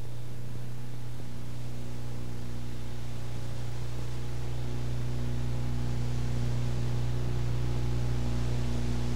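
Steady electrical mains hum with its overtones over a bed of tape hiss, growing slightly louder towards the end.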